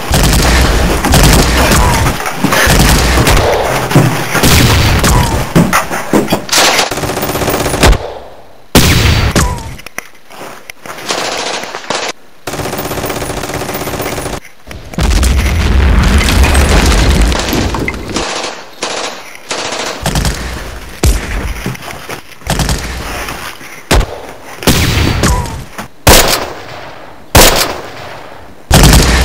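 Battle gunfire: rapid automatic bursts mixed with single shots. It is dense for the first several seconds, then thins into separate bursts with short quiet gaps.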